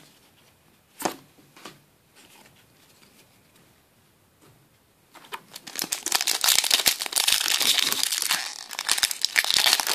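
A foil Yu-Gi-Oh booster pack being torn open and crinkled in the hands, a dense crackling that starts about halfway through and keeps going. Before it, a couple of light taps.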